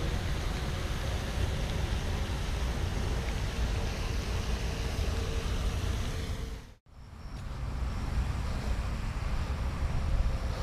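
Steady low rumbling outdoor background noise, with no distinct events, that drops out briefly to near silence about seven seconds in and then returns.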